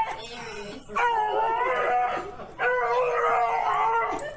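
A dog letting out long, high, steady-pitched howling screams, two full ones of about a second and a half each with short breaks between, that sound just like a TIE fighter.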